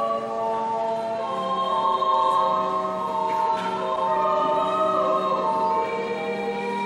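A choir singing a slow hymn in long held chords, which change about a second in and again near the end.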